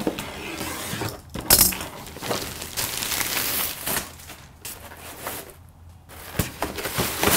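Plastic courier bag crinkling and rustling as it is pulled off a cardboard box, with a sharp clack from the box being handled about one and a half seconds in.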